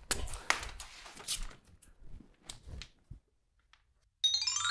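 Blue painter's masking tape being pulled off the roll and pressed down, a run of short scratchy rips and rubs. Near the end a chiming music cue starts, a quick run of falling notes that ring on.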